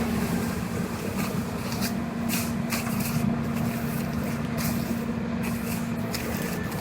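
A motor-driven tool running with a steady hum, with brief hisses over it.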